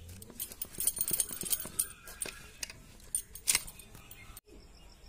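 A quick run of light clinks and rattles, strongest in the first three and a half seconds, then a brief dropout near the end.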